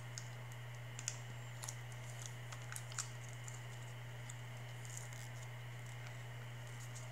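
Scattered light clicks and crinkles as a small plastic MRE apple jelly packet is handled and worked at, hard to open. The two sharpest clicks come about a second in and about three seconds in, over a steady low hum.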